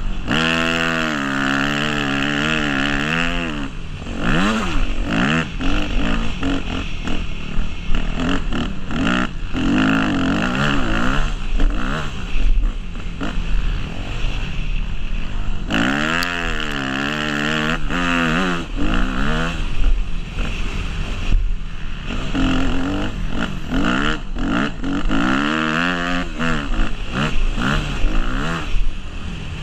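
Yamaha YZ250F motocross bike's 250cc four-stroke single-cylinder engine revving hard and dropping back again and again, as a rider runs a motocross track. Its pitch climbs and falls in repeated sweeps, with rushing noise and short knocks throughout.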